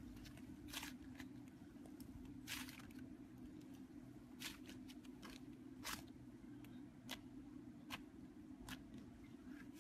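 Thick slime being squeezed and folded by hand, giving short, sharp clicks and pops about once a second over a faint steady low hum.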